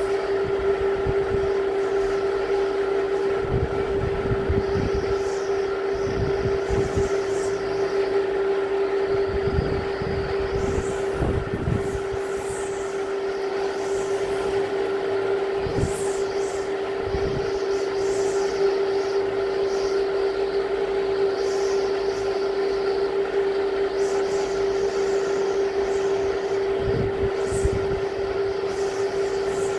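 Typhoon wind gusting, with irregular low rumbling surges as gusts hit the microphone, over a steady unchanging hum.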